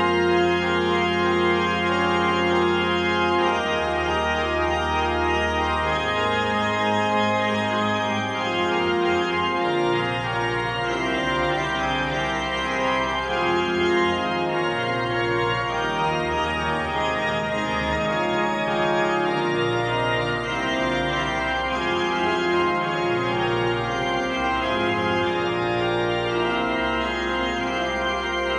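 Historic pipe organ (1627–1725) playing a polyphonic improvisation in a full-sounding registration, one middle note sustained throughout while the bass and inner parts move in slow steps beneath it.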